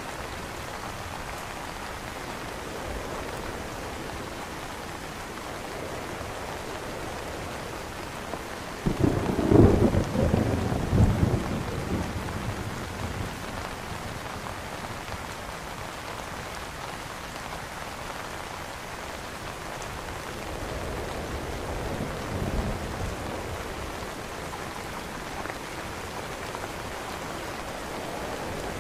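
Steady rain falling on an umbrella. About nine seconds in, a low rumble of thunder swells for around three seconds, and a fainter rumble follows later.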